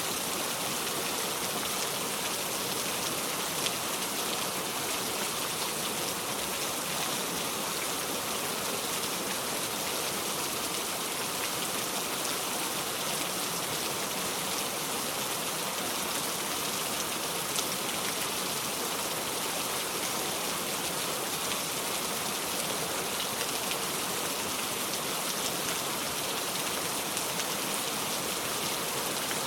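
Steady rain: an even, continuous hiss of rainfall with faint scattered drop ticks.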